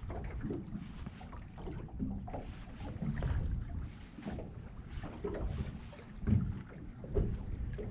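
Wind buffeting the microphone over water lapping against a small fishing boat, with scattered light knocks from the boat.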